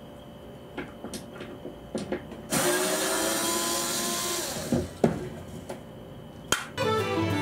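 A small electric motor runs loudly for about two seconds and winds down in pitch as it stops, with a few light clicks and knocks before and after it.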